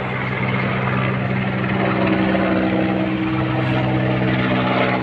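Helicopter flying overhead: a steady rotor and engine drone with a low, even hum.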